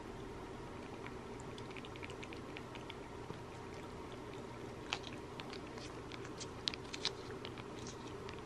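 Two cats licking puree treat from a squeeze tube: a run of small, wet lapping clicks and smacks that grow busier past the middle, with a few sharper smacks standing out.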